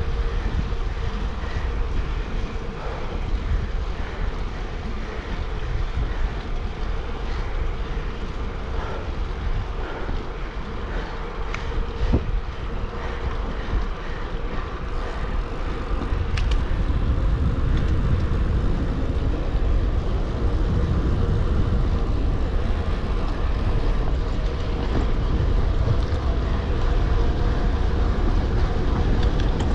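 Wind buffeting the microphone and a gravel bike's tyres rolling on the road, with a steady hum and a single sharp knock about twelve seconds in. The rush grows louder about halfway through as the pace picks up.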